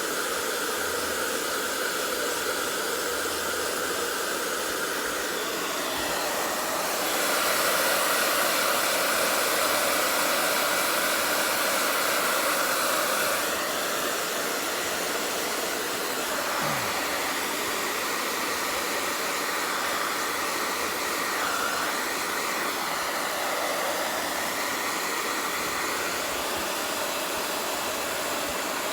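Hair dryer blowing steadily, drying a wet pet after its bath. It grows louder from about seven seconds in until about thirteen seconds, then eases back.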